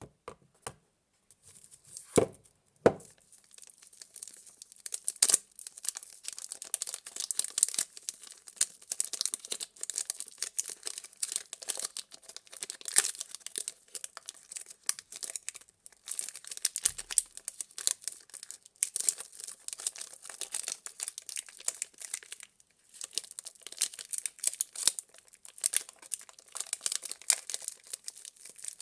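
Soap packaging being unwrapped by hand: a wrapper crinkling and tearing almost without pause, with short breaks. Two sharp knocks come about two seconds in, before the crinkling starts.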